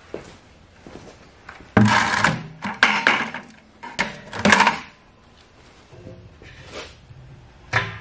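Stainless steel honey strainer handled and set down on a plastic bucket: metal clattering and scraping in several bursts over about three seconds, then a single sharp click near the end.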